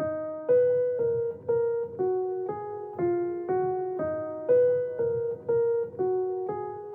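Music: a piano-like keyboard plays a slow melody of single notes, about two a second, each note ringing and fading before the next.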